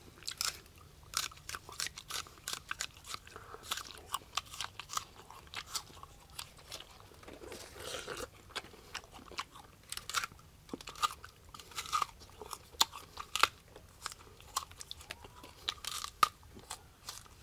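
A person biting into and chewing firm, crisp small wild fruits, close up: a long irregular run of sharp crunching bites and chewing sounds.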